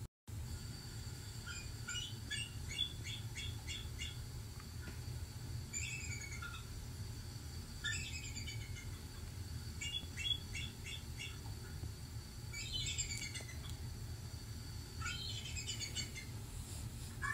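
A bird calling in bouts: runs of quick high chirps alternate with short falling calls every couple of seconds, over a low steady hum.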